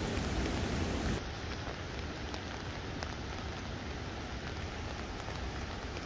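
Steady rain falling on trees and wet paving, with scattered single drips ticking. About a second in it turns a little quieter.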